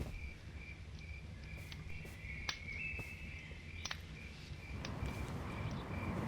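Outdoor nature ambience with crickets chirping in a steady, regular pulse, over a low rumble and a few faint clicks. A broader rustling hiss grows in about five seconds in.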